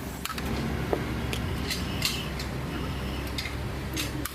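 Metal clinks and taps of hand tools and parts during the disassembly of a manual gearbox: several sharp, separate clicks spread through, over a steady low hum.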